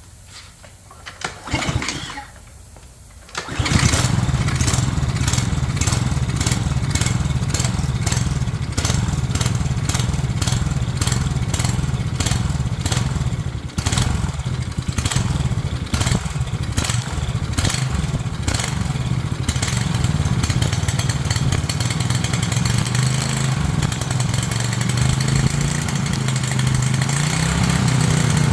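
Small gasoline engine of a Craftsman pressure washer cranked briefly, then catching about three and a half seconds in and running on, unevenly at first and smoother later, with its pitch creeping up near the end.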